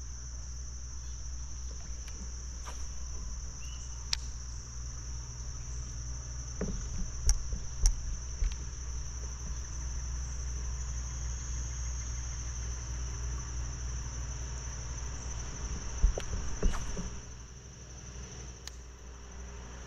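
Steady high-pitched insect buzzing over a low rumble, broken by a few sharp knocks; the loudest knocks come about seven, eight and sixteen seconds in.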